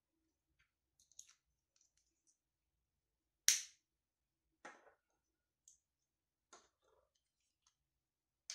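Small glass essential-oil dropper bottles and their plastic caps being handled: a few separate clicks and knocks on a wooden table, the sharpest about three and a half seconds in.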